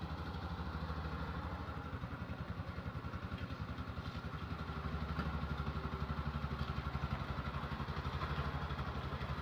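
A motor vehicle's engine running steadily, with a fast, even pulse and a low hum.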